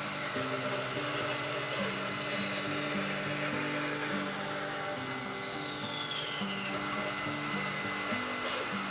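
A small wood lathe turning a cherry platter blank, with a gouge cutting the spinning wood in a steady hiss. Partway through, a faint whistle falls slowly in pitch. Background music plays throughout.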